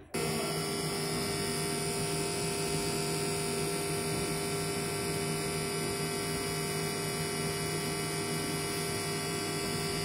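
Microwave oven running as it heats a bag of cut potatoes: a steady electrical hum made of several fixed tones over a noise haze. The hum cuts in just after the start.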